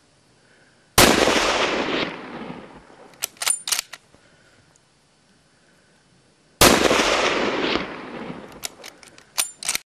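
Two rifle shots about five and a half seconds apart, each with a long echo rolling off across the canyon over two to three seconds. Each shot is followed by a quick run of sharp metallic clicks.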